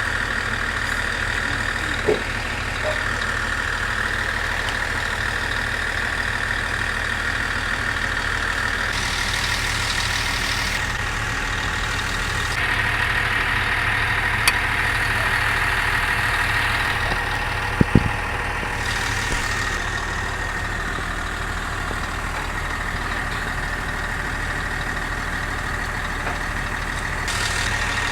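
Heavy truck diesel engine idling steadily, with a constant low hum and a thin steady whine, broken by a few sharp knocks, the loudest about two-thirds of the way through.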